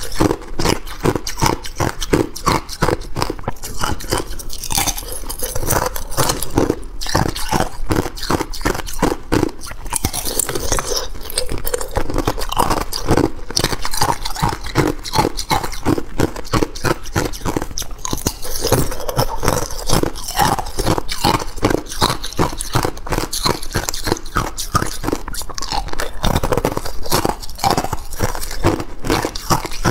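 Thin ice being bitten and chewed close to the microphone: a rapid, continuous crackle of crunching ice, with pieces also snapped between the fingers.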